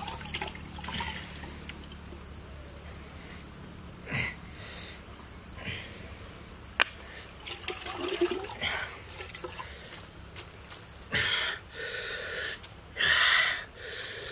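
Scattered clicks and scrapes of raw oysters and shells being handled. Near the end come a few loud breathy hisses, like a man's sharp exhalations.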